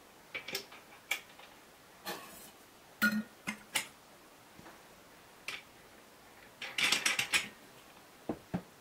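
Light metallic clicks and clinks as a toothed circular saw blade is fitted onto an angle grinder's spindle. Single clicks come first, then a quick run of clinks about seven seconds in, and two dull knocks near the end.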